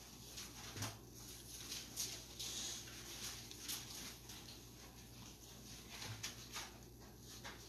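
Faint, scattered rustles and light taps of handling at a music stand while a Bible passage is being looked up, over a steady low hum.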